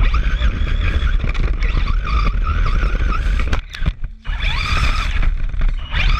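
Electric RC car driving hard: the motor's high whine rises and falls with the throttle over a rough rumble of tyres on the ground, with a brief drop-off a little past the middle before the whine climbs again.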